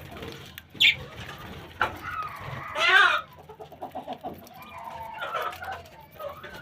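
Chickens clucking, with one loud squawk about three seconds in, mixed with short high chirps from small birds.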